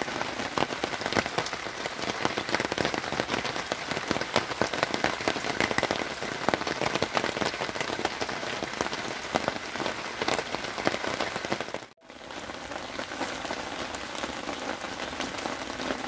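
Pouring rain pattering on the Land Rover Defender's body and windows, a dense, steady hiss of countless fast drops. It cuts out for an instant about twelve seconds in and carries on a little softer.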